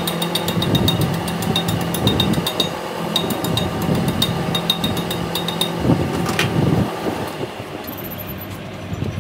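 Steel chipping rod tapping rapidly on the fresh weld bead of a butt-welded axle shaft, knocking off slag, a few sharp metallic taps a second over a steady machine hum. One louder strike comes about six and a half seconds in, and then the tapping stops.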